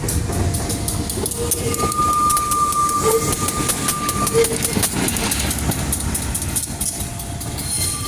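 KAI diesel-electric locomotive running light past at close range: engine rumble with rapid clicking of wheels over the rail joints. A steady high tone sounds for about two and a half seconds in the middle.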